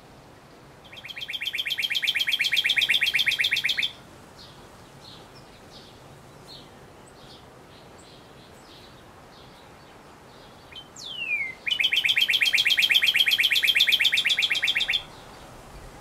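Male northern cardinal singing: two rapid trills of quickly repeated notes, each about three seconds long. The second trill is led in by a single falling whistle.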